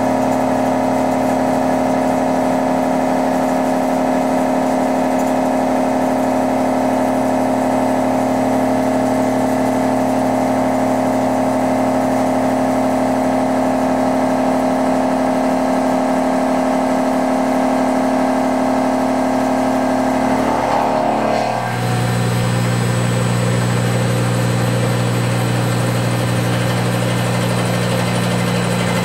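Brother TC225 BT30 CNC mill taking a deep face cut in medium carbon steel with a 2.5-inch six-insert carbide face mill: a loud, steady machining sound made of several tones together. About three-quarters of the way through, the sound shifts abruptly to a lower steady hum.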